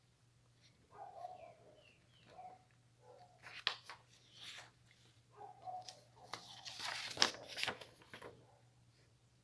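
Sheets of drawing paper rustling and crackling as they are handled and shown, in irregular bursts with the loudest about seven seconds in. A few faint, short tonal sounds come in between.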